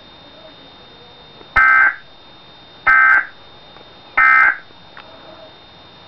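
Emergency Alert System end-of-message data bursts, played through a TV speaker: three short, identical buzzy chirps about a second and a half apart, the digital code that signals the end of the alert.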